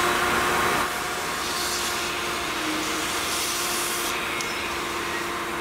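Ridgid shop vacuum running with a steady hum and rush of air, its nozzle held at a freshly drilled hole in a polyethylene water tank to suck out the plastic shavings. The sound drops a little under a second in.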